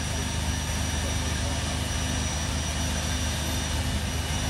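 GM Firebird III concept car's gas turbine engine running steadily: a constant high whine over a low, even rumble.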